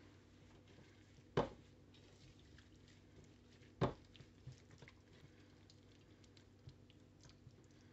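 Red silicone spatula stirring a wet, oily herb-and-spice marinade in a bowl: soft squishing and dripping, with two sharp knocks about a second and a half in and again near four seconds.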